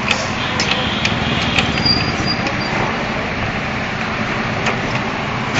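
Steady background rumble of traffic-like noise, with a few light clicks and knocks as a motorcycle cylinder barrel is worked loose and lifted off its piston.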